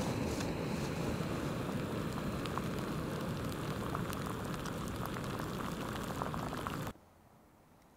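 Gas canister backpacking stove's burner running with a steady rushing hiss under a cup of melting snow, with small crackles and ticks from the heating water. The burner cuts off suddenly about seven seconds in as its fuel valve is turned off.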